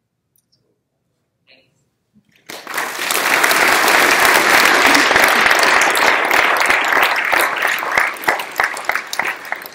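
Audience applauding: near silence at first, then clapping starts suddenly about two and a half seconds in, holds steady, and thins into scattered claps near the end.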